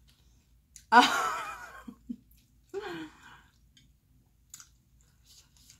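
A woman's loud, breathy sigh about a second in, its pitch wavering and falling, then a shorter voiced exhale near three seconds, followed by a few faint mouth clicks. The sighs come while spicy noodles are burning her lip.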